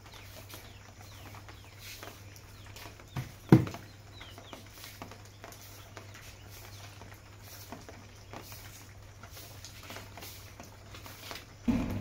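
Grass broom sweeping a concrete floor: repeated soft swishing strokes over a steady low hum. A sharp knock comes about a third of the way in, and a heavier thump near the end.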